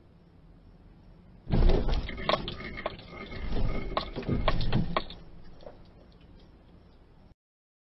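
A reversing SUV backing into the front of the car: a sudden impact about a second and a half in, followed by a few seconds of crunching and scraping of body panels, heard from inside the struck car.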